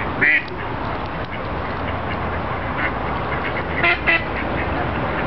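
Mallard ducks quacking: one loud quack about a third of a second in, a few fainter ones, then two quick loud quacks near the end, over steady background noise.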